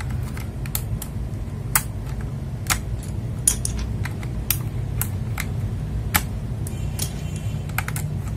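Scattered sharp plastic clicks from an FL Esports MK870 mechanical keyboard's switches and keycaps being handled, about one or two a second, over a steady low hum.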